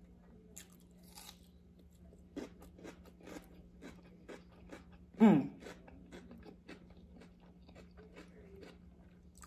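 Close-up crunching and chewing of raw yellow bell pepper, a string of short irregular crunches. About five seconds in, a brief loud voice sound falling in pitch.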